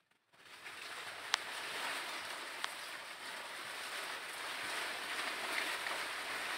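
Steady rushing outdoor noise, with two faint clicks about a second apart.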